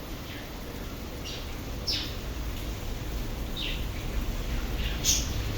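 Birds chirping: about six short, high, falling calls over the steady hiss of heavy rain. A low rumble builds near the end.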